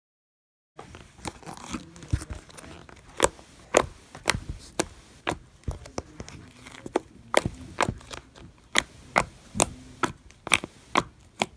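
Freshly made bubblegum slime being squished and played with by hand, giving sharp pops and crackles about twice a second, with faint sticky crackling between them.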